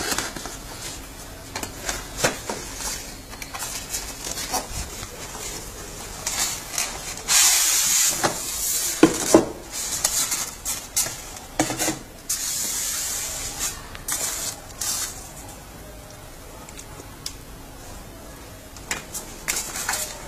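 Packaging being handled: a cardboard box and a polystyrene foam tray and lid rubbing, scraping and sliding, with scattered light knocks and clicks. The loudest is a hissing slide about seven seconds in, with a longer scrape a few seconds later.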